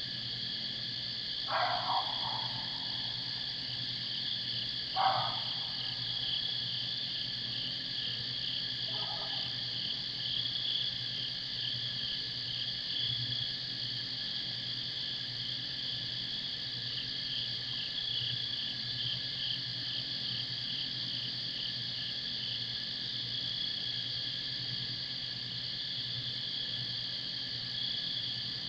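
Steady chorus of crickets and katydids, a high trilling with a fast pulsing beat. Three short cries fall in pitch about one and a half, five and nine seconds in, the second one the loudest and the third faint. A low steady hum runs underneath.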